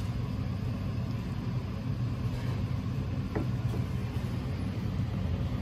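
Steady low rumble of motor traffic, with one brief squeak a little over three seconds in.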